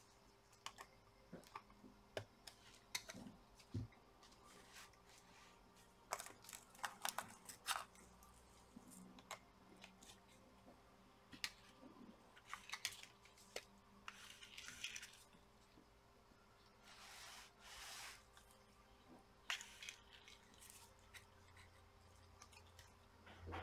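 Faint, scattered clicks and taps of small plastic and metal laptop parts being handled and fitted, with a few brief rustles about midway.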